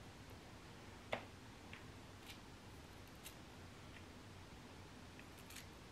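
Near-silent room with a handful of faint, scattered ticks, the sharpest about a second in, from fingers pulling apart small clumps of mini hair grass plantlets.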